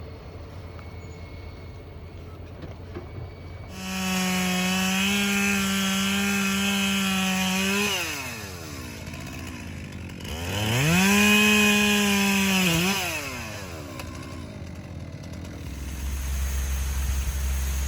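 Two-stroke chainsaw revved to full throttle twice, each time for about three to four seconds, then dropping back to idle. A low rumble runs underneath and grows louder near the end.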